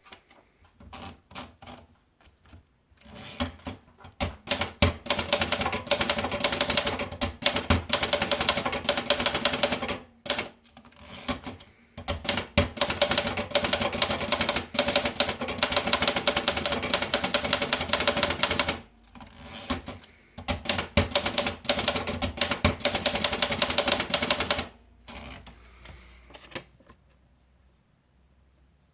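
Erika Model 8 manual typewriter being typed on: three long runs of rapid key strikes with short pauses between them, and sparser single strikes at the start and near the end.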